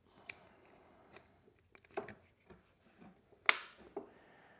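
A few faint metal clicks and taps as a pick and fingers work the throttle cable end free from an ATV carburetor. The sharpest click comes about three and a half seconds in.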